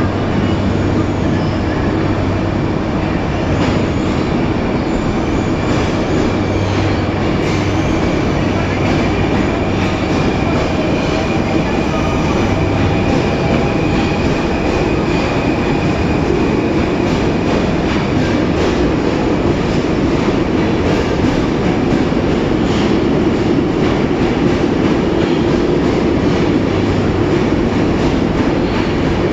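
Caracas Metro Line 1 train running on its rails: a loud, steady rumble of wheels and car noise, with a faint high wheel squeal through the middle stretch.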